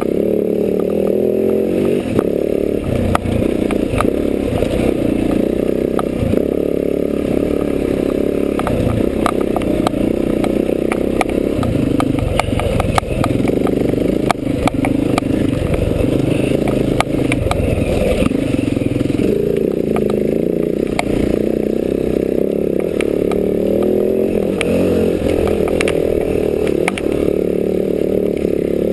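Enduro dirt bike engine running under changing throttle on a rough track, with frequent knocks and clatter from the bike going over stones and ruts.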